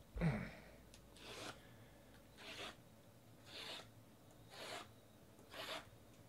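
A soft thump about a quarter-second in, then five rasping, rubbing strokes about a second apart: hands sliding over a stack of shrink-wrapped trading card boxes.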